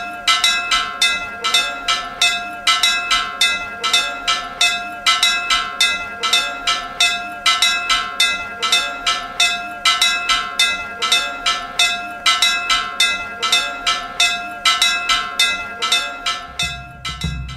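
Chapel bells rung rapidly in a repeating peal, about four strikes a second, the tones ringing on between strokes. A drum comes in near the end.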